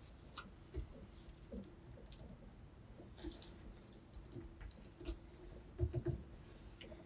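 A sheet of paper being handled and folded by hand: faint scattered rustles and light taps against the table, a few slightly louder near the end.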